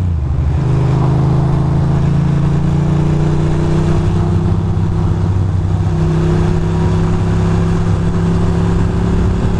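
Ducati Monster 620's air-cooled L-twin engine running steadily at low revs in traffic, heard from the rider's position. Its pitch rises slowly, with a small shift about six seconds in.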